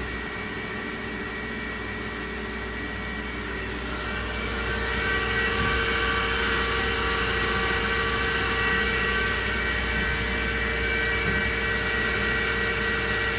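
CNC machining centre running, with several steady whining tones over a hiss. It grows louder about four seconds in and then holds steady.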